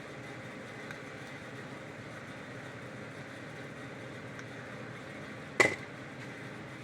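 Steady workshop background noise, broken once by a single sharp click with a brief ring about five and a half seconds in, as of a small metal tool or part handled on the bench; two much fainter ticks come earlier.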